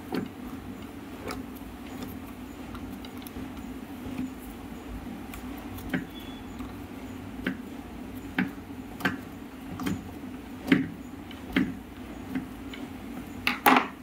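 Hard plastic parts of a table fan being handled and knocked against each other and the bench: irregular clicks and knocks, more frequent in the second half, the loudest near the end, over a steady low hum.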